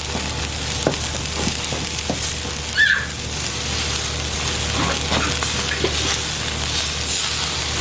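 Food sizzling and crackling on a charcoal kettle grill: a steady hiss with scattered small pops. A brief high chirp comes a little under three seconds in.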